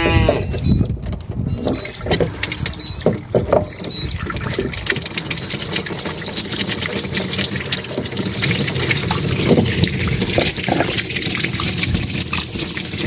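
Running water, a steady rush with fine spattering crackle that settles in a few seconds in and continues evenly.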